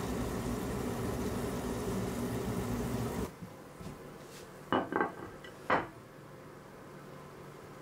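Hot oil sizzling steadily as a doughnut deep-fries in a pan, cutting off abruptly about three seconds in. Three short clinks of a glass dish knocking on a wooden table follow in quieter room tone.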